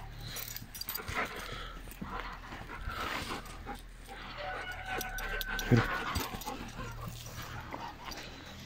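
Belgian shepherd dog moving about on dry ground and making faint dog sounds, with one short louder sound a little before six seconds in.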